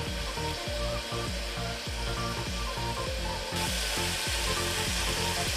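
Chopped onions and tomatoes sizzling in hot oil in an aluminium pressure cooker as they fry down until soft. About three and a half seconds in, the sizzle gets louder as a steel spoon starts stirring them.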